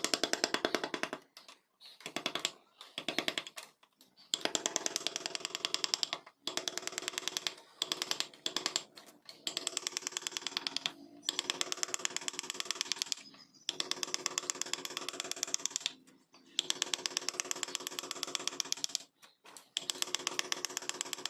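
Rapid, evenly spaced taps of a mallet driving a carving chisel into wood, in runs of one to two seconds with short pauses between.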